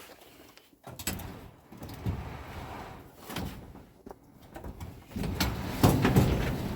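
Sectional garage door running along its tracks, its rollers rumbling and clattering with irregular knocks, loudest near the end. The door is being tested after a roller wheel that had come off was pushed back into the track.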